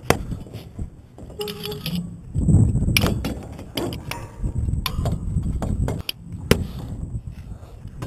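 Metal climbing gear clinking and knocking against the steel peg rungs and shell of a tall tower's top section as the climber moves up, with wind rumbling on the microphone. Many sharp separate clicks and knocks, some close together.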